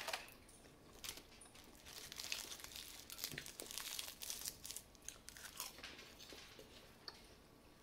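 Crisp seasoned seaweed (gim) crackling faintly as it is handled and folded, then crunching as it is chewed, in irregular short bursts.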